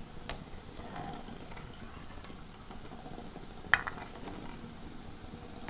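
A metal spoon gently stirring eggs in a pan of boiling water: a steady bubbling hiss, with two clinks of the spoon, a light one near the start and a louder one past halfway.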